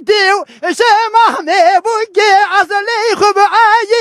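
A dengbêj, a Kurdish traditional singer, singing unaccompanied into a microphone: a high, strained male voice in long phrases with a constantly quavering, ornamented pitch and short breaths between them.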